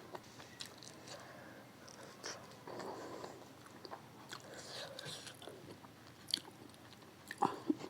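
Close-miked mukbang chewing: soft wet mouth sounds and scattered small clicks of someone chewing food, with a couple of sharper smacks near the end.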